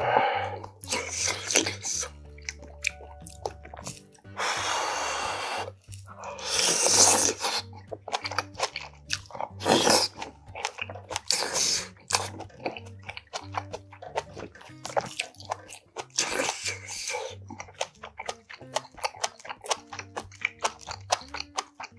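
Close-miked eating: wet chewing and slurping of spoonfuls of rice and soybean-paste stew (doenjang jjigae), with many short mouth clicks and two longer slurps a few seconds in, over soft background music.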